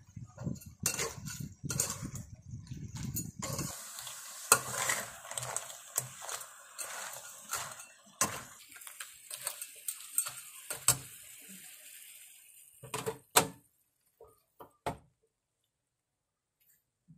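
Spatula scraping and clanking against a wok while crabs and herbs are stir-fried, over a steady sizzle, with a few separate clanks near the end. A low rumble comes before it in the first few seconds.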